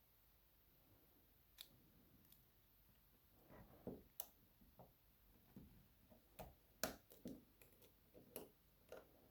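Irregular small metal clicks and ticks of tools working at the C-clip on the back of a dimple lock cylinder, a tight clip that has to be bent open. Sparse at first, then about a dozen clicks from a few seconds in, one sharp click standing out near the end.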